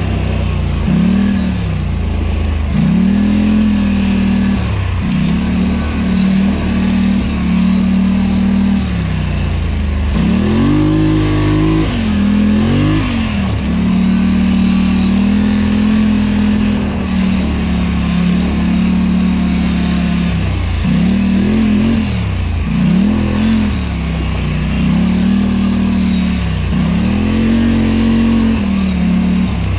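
Polaris Scrambler 1000 ATV engine under way, its revs dropping and climbing again every second or two as the throttle is worked, with a few seconds of steady running now and then.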